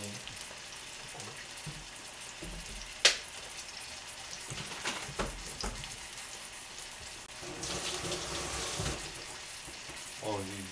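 Chicken breast steaks sizzling in a frying pan, a steady hiss. A sharp clack comes about three seconds in, a few lighter knocks follow, and a louder rush of hiss lasts about a second and a half near the end.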